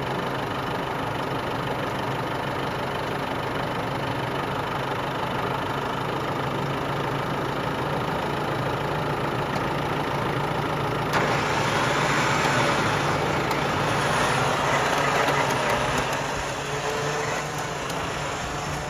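Four-wheel-drive vehicle's engine running steadily. About eleven seconds in, a louder rushing noise joins it for several seconds, then fades.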